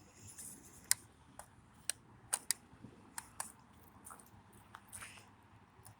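Scattered sharp clicks and taps, about a dozen at uneven intervals, over a faint background.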